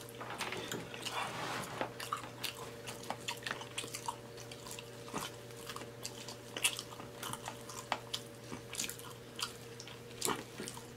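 Close-miked chewing and mouth sounds of a man eating syrupy banana nut pancakes: irregular wet smacks and clicks, over a faint steady hum.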